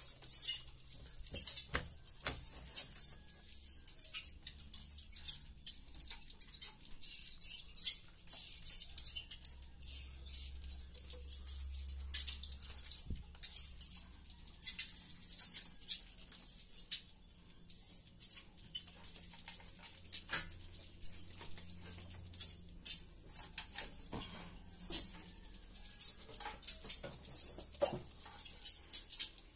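Swiftlets twittering: a dense, continuous high-pitched chatter of short chirps, broken by scattered sharp clicks and knocks.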